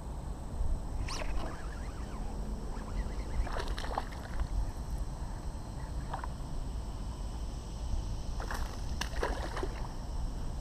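A hooked largemouth-type bass splashing and thrashing at the water's surface beside a small boat: short splashes about a second in, again near four and six seconds, and a cluster of them near the end, over a steady low rumble.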